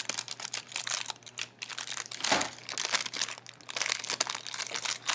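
Clear plastic bag crinkling in a run of irregular crackles as a small squishy toy is handled in it, with one louder crackle about two seconds in.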